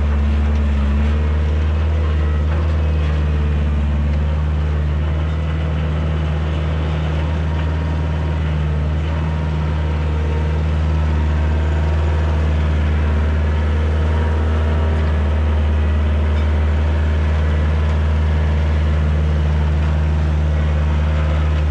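Kioti DK40se compact tractor's diesel engine running at a steady speed while it works the loader-mounted root rake through the soil. A deep, even drone.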